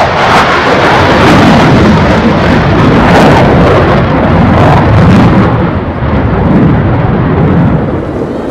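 Jet noise from the F-35C's single Pratt & Whitney F135 turbofan at high power in a high-G turn: loud, rumbling and full-bodied with sharp crackles, easing slightly after about six seconds.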